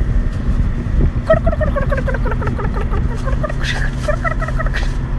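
A steady low engine-like rumble, with a run of quick, short chirping notes over it from about a second in to near the end.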